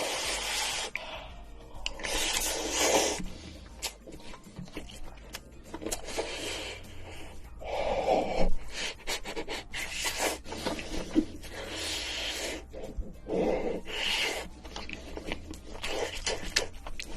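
Close-miked eating sounds: a utensil scraping and rubbing against the dish and chewing, in short noisy swishes every second or two with scattered small clicks.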